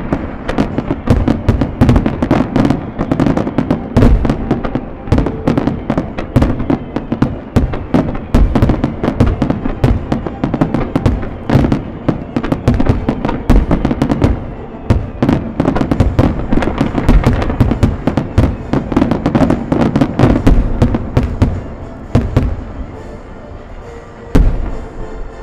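Dense fireworks barrage: rapid bangs, cracks and crackling from many shells, mines and fountains firing together, over music. The firing thins out near the end, then one loud boom.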